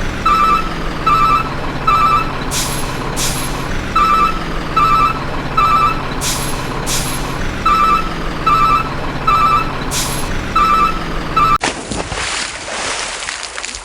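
Truck reversing alarm beeping over and over over a low diesel engine rumble, with short air-brake hisses every few seconds. About twelve seconds in, it cuts to a rushing, water-like noise.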